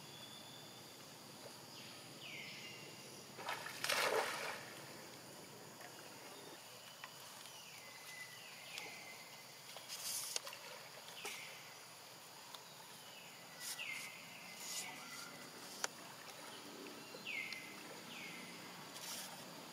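Water splashing and sloshing as macaques swim in floodwater, in several separate bursts, the loudest about four seconds in. Under it a steady outdoor background with repeated short falling chirps.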